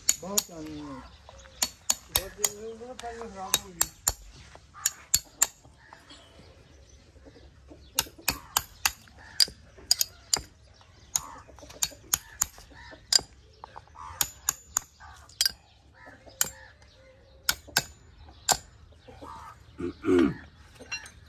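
A farrier's hammer tapping nails through an iron horseshoe into a horse's hoof: sharp metallic strikes in quick, irregular runs. A short, loud pitched call sounds near the end.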